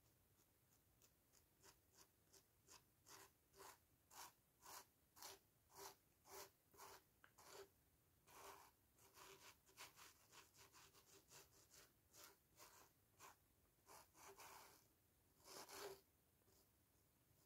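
Faint, soft dabbing of a paint-loaded kitchen sponge pressed against a phone case, about two dabs a second at first, then quicker and more irregular, with a longer rub near the end.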